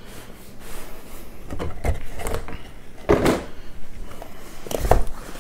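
Cardboard scraping and rubbing as a snug-fitting inner box is worked loose inside its outer cardboard box, in several short scrapes, the loudest about three seconds in.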